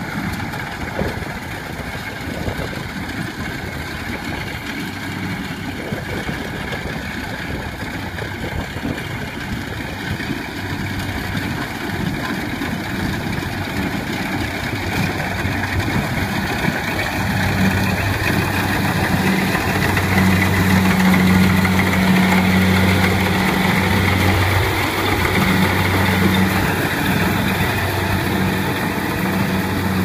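Kubota crawler combine harvester running as it cuts and threshes rice, a continuous engine and machinery drone with a steady low hum. It grows louder about two-thirds of the way in.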